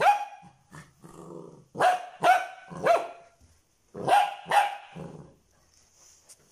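Golden retriever puppy barking in play: short, high barks with a falling pitch, in quick runs of three, and a brief low growl about a second in.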